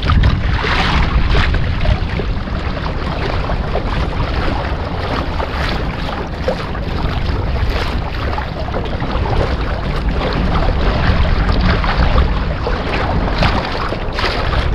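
Wind buffeting the microphone with a steady low rumble, over water lapping and splashing around a kayak, with a few brief louder splashes.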